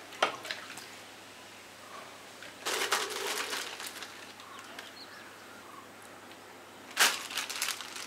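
Plastic packet crinkling as it is handled and squeezed, in two bursts of about a second each: one about three seconds in and another near the end.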